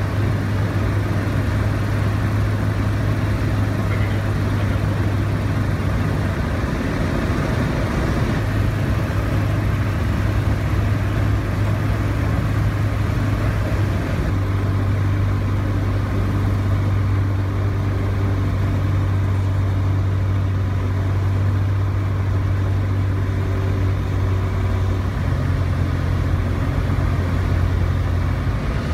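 ICP Savannah VG's engine and propeller droning steadily at approach power, heard inside the cockpit with a wide rush of wind and airflow. The low tone shifts slightly about halfway through, and a second, higher tone joins a few seconds before the end as power is adjusted for the flare.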